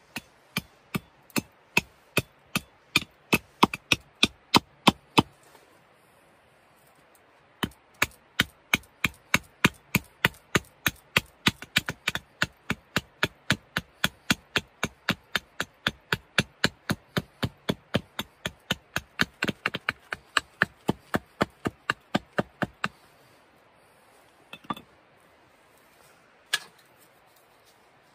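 Hatchet chopping a dried pear branch against a log chopping block: quick, even knocks at about two to three a second. They pause briefly after about five seconds and then run on for about fifteen more, followed by two single knocks near the end.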